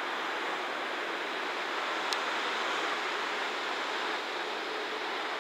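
EF210 electric locomotive and its container wagons approaching at speed: a steady, even running noise of wheels on rail, with one sharp tick about two seconds in.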